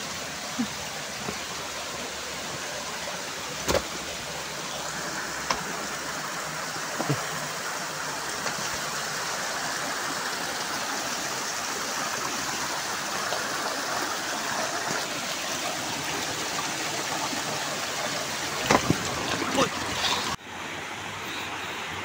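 Shallow mountain stream running over rocks in a small cascade: a steady rushing hiss, with a few faint knocks. The water noise drops away abruptly near the end.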